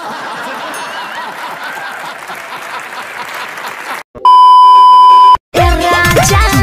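Studio audience applauding for about four seconds. Then a loud, steady test-pattern beep sounds for about a second over the colour-bar card and cuts off sharply. Upbeat electronic music starts near the end.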